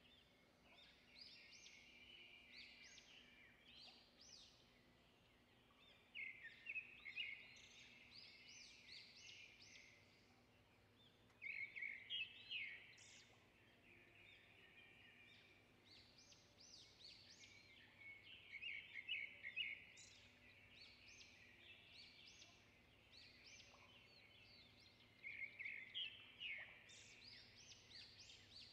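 Faint birdsong: phrases of rapid high chirps coming every few seconds, over a faint steady hum.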